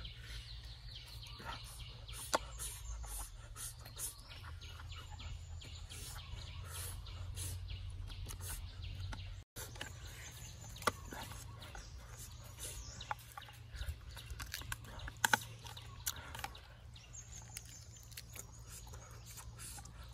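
Chickens clucking, with scattered sharp clicks and knocks.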